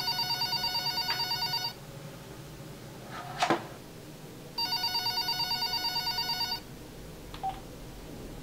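Telephone ringing with an electronic trilling ring: two rings of about two seconds each, with a brief sharp noise between them that is the loudest moment.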